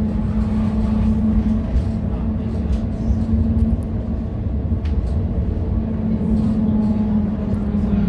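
GVB Amsterdam tram running along the street, heard from inside the passenger saloon: a continuous low rumble of the ride with a steady hum that fades for a few seconds in the middle and comes back near the end. Occasional light clicks and rattles sit over it.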